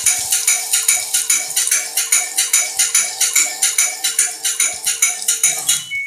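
Background music with a quick, steady beat of about five strokes a second over a held tone, stopping abruptly near the end.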